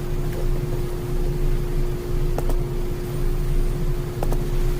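Steady background hum, a low rumble with a constant mid-pitched tone, typical of a fan or air conditioning in the recording room. A couple of faint computer mouse clicks, about halfway and near the end.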